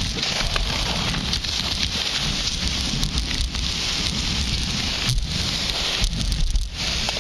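Skis sliding and carving on groomed snow, a steady hiss from the skis on the snow that eases briefly twice near the end, over a low rumble of wind buffeting the camera's microphone.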